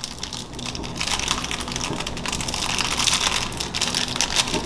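Plastic packaging crinkling as it is handled and opened, a dense crackle that gets louder about a second in.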